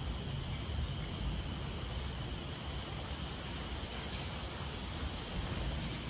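Heavy rain falling steadily: an even hiss with a low rumble beneath it.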